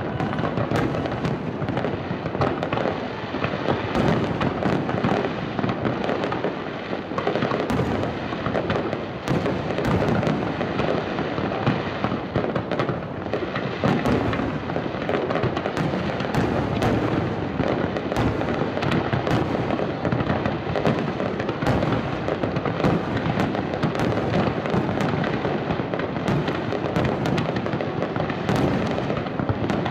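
Aerial fireworks display: shells bursting in a dense, continuous barrage, with many sharp bangs over a steady din.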